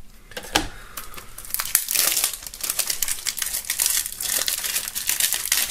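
Cellophane shrink wrap crinkling and tearing as it is peeled off a plastic CD jewel case, a dense crackle that grows busier after the first couple of seconds, with one sharp click about half a second in.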